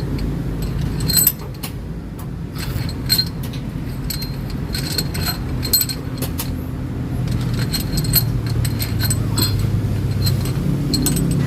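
Steel bolts and tools clinking and tapping as bolts are set by hand into the engine's cylinder head, in irregular light metallic clicks with a short ring, over a steady low hum.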